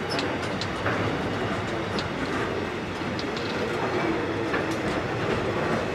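Container wagons of a freight train rolling past, their wheels clattering over the rails, with a few brief high squeaks from the wheels.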